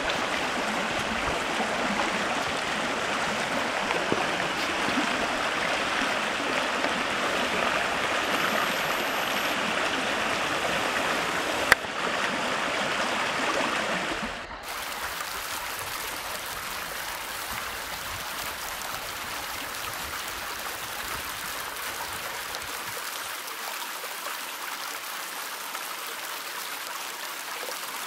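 Forest mountain stream rushing and gurgling over rocks. About halfway through it cuts to a different, quieter stretch of running water, with a single sharp click shortly before the change.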